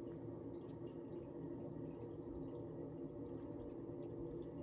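Quiet steady low hum with faint scattered ticks: room tone.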